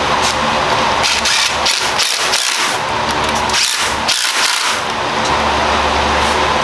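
Cordless drill whirring in several short bursts at the front of a bare big-block Chevy engine block, over a steady background hum.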